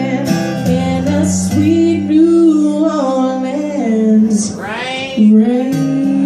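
A woman singing over a strummed acoustic guitar, her voice sliding upward near the end before a chord rings out.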